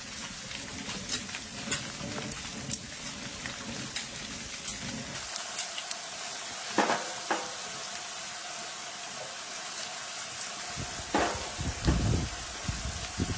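Small, newly lit campfire crackling and hissing, with scattered sharp pops and a few louder bumps about two-thirds of the way through.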